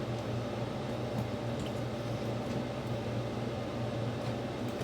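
A steady low mechanical hum, with a few faint soft clicks.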